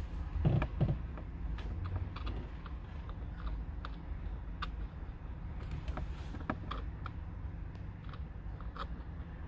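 Scattered light clicks and taps of a drill bit being worked into the release hole behind a Mk4 Jetta's stock steering wheel, trying to pop the airbag's retaining clip, over a low steady hum.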